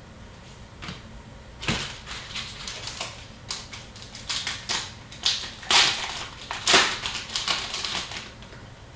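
Hockey trading cards and their pack wrapper being handled: a dense run of crinkles and clicks that starts about two seconds in and stops near the end.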